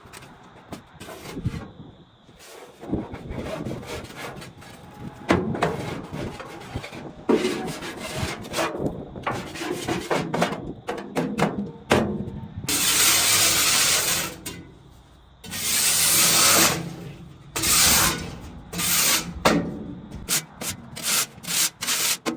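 Hand scraper scraping clay-like dredge residue off a dump truck bed in irregular strokes, with longer, louder strokes about halfway through and a run of quick short strokes near the end.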